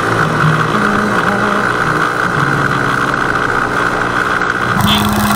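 Engine of an open vehicle running steadily on the move, its pitch shifting a little; the sound changes abruptly near the end.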